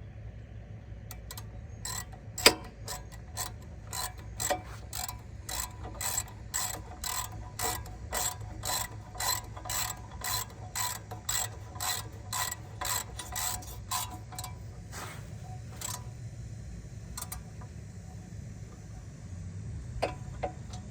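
Hand ratchet wrench clicking in steady strokes, about three clicks a second, as the rear brake caliper bracket bolts are run in, with one sharp knock early on. The clicking stops about two-thirds of the way through, leaving a few stray clicks.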